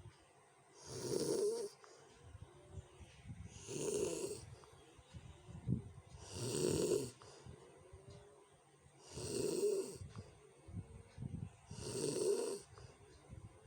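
A sleeping person snoring harshly, five rough snores at an even pace of about one every three seconds, with softer rattling breaths between them.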